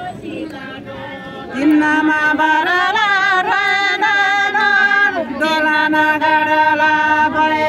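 Group of women singing a Tamang fapare selo in unison with no instruments, stretching out long held vowels. The singing grows louder about a second and a half in, wavers through an ornamented stretch in the middle, then settles on one long held note.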